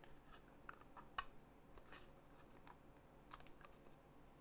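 Faint, irregular clicks and taps of a plastic Pamu Slide earbud charging case being handled while someone tries to work out how it opens; the sharpest click comes about a second in.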